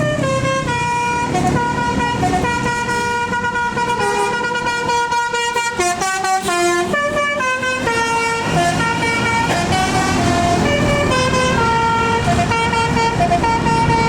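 Bus telolet horn, a set of electrically switched air-horn trumpets, playing a tune of held and stepping notes, with a quick run of notes about halfway through. The bus engine runs underneath.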